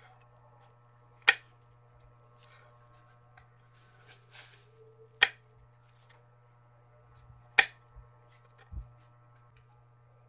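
Thin plastic bag crinkling briefly as santol peels are pushed into it, with three sharp clicks a few seconds apart and a dull thump near the end. A steady low hum runs underneath.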